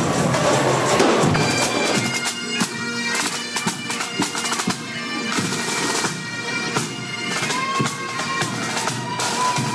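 Bagpipes playing a tune over their steady drone, with drum strikes; the pipes come in clearly about two seconds in.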